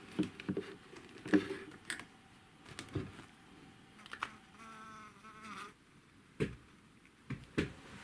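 A honeybee buzzing briefly about halfway through, a short wavering drone. Around it come scattered clicks and knocks of handling as a marker pen is capped and put away.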